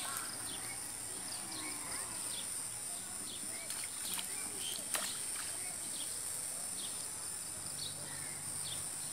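Rural outdoor ambience: a steady high-pitched insect drone with scattered short bird chirps over it, and a few sharp clicks, the loudest about five seconds in.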